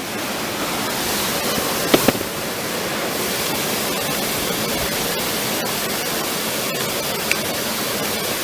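Waterfall rushing with a steady, even noise, with two sharp knocks about two seconds in.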